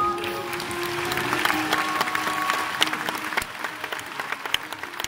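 Live band's last held notes dying away as an audience applauds. The clapping thins out to scattered separate claps toward the end.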